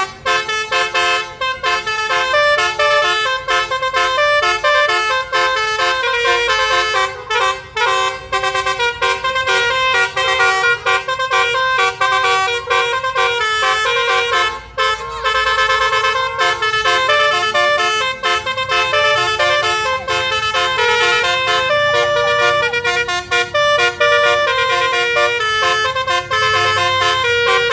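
Musical air horns playing fast tunes, note after note in quick steps with several notes often sounding together, without a break.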